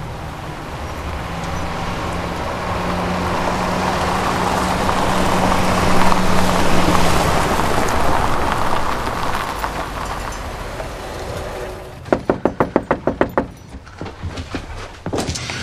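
Car driving up a gravel lane: engine hum and tyres crunching on gravel, swelling as it passes close about six seconds in and fading away. About twelve seconds in comes a quick run of about ten sharp knocks on a door, with a few more near the end.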